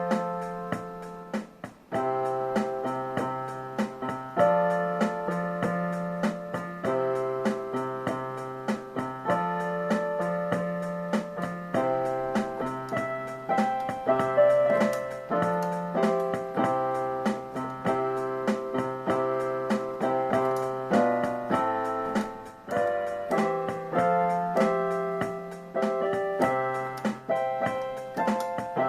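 Keyboard played with a piano sound: a song's chords held and changed about every second or two, with a melody line moving over them.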